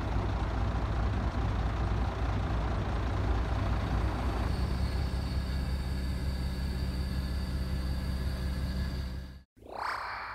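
Truck engine running steadily while its loader crane lifts a steel skate ramp section. About nine and a half seconds in it cuts off suddenly and a short sound rising in pitch follows.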